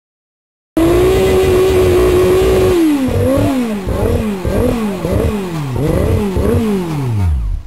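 Formula Student race car's engine running on the stand. It holds a steady note for about two seconds, is revved in about six quick blips, each rising and falling, and then winds down and stops near the end.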